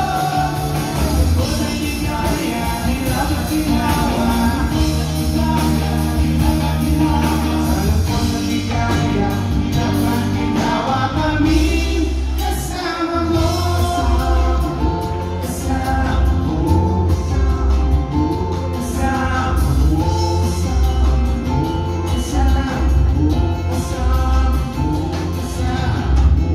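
Live rock band playing a song with lead vocals: drums, bass guitar, electric guitars and acoustic guitar under a sung melody, with a short dip in the music about twelve seconds in.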